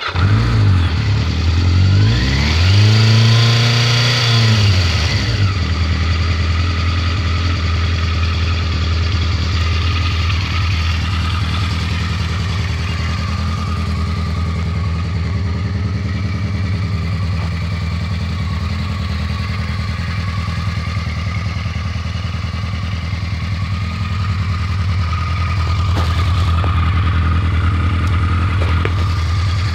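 1986 Yamaha Maxim X (XJ700X) liquid-cooled inline-four engine firing up, revved once up and back down over the first few seconds, then settling into a steady idle.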